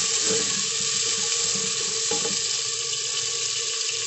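Onions, garlic, tomatoes and green chillies sizzling in hot oil in a pan, with a steady hiss while being stirred; the stirring strokes die down a little over two seconds in.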